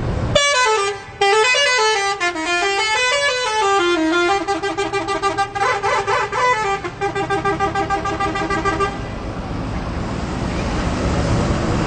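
Telolet horn on a bus, a multi-tone musical air horn, playing a warbling melody of rapidly pulsing notes. The notes glide up and down for the first few seconds, then repeat in steadier pulsed tones. The horn stops about nine seconds in, leaving background street noise.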